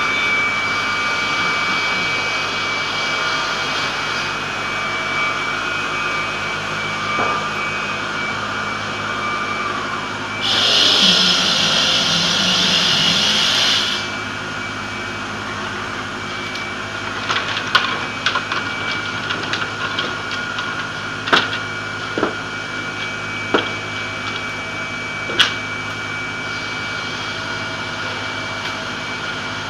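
Twelve-blade multi-rip circular saw machine running with a steady whine and the rush of its dust extraction. About ten seconds in, the blades take a sheet of bent plywood and rip it into slats: for about three and a half seconds the sound turns louder and hissier and the whine sags under the load. Later come several sharp knocks as the cut wood is handled.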